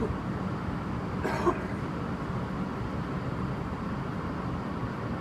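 Steady low rumble of a vehicle heard from inside the cabin while standing in traffic, with one short burst of noise about a second and a half in.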